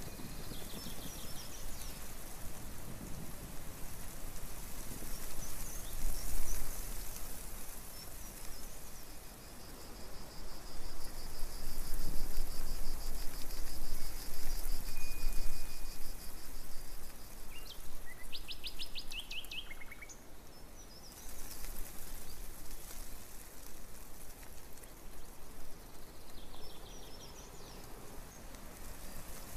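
Small songbirds calling and singing now and then over a steady outdoor hiss that swells and fades. There is a quick, rapid trill about two-thirds of the way through.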